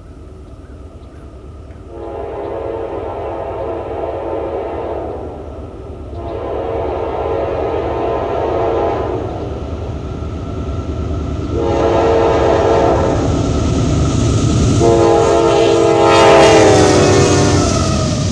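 Locomotive air horn sounding the grade-crossing pattern: two long blasts, a short one and a long one, over the rising rumble of an approaching train. The last blast drops in pitch as the train passes.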